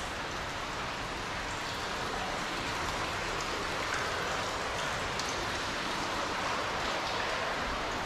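Steady, even rushing hiss of water.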